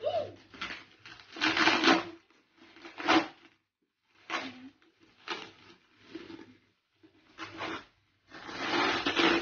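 Plastic packing wrap and paper wrapping crinkling and rustling as they are pulled out of a box by hand, in irregular bursts with short pauses between them.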